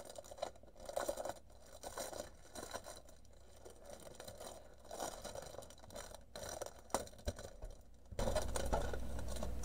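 Clear plastic bag crinkling and rustling in irregular crackles as a rolled diamond painting canvas is pulled out of it. Near the end a steady low hum comes in suddenly.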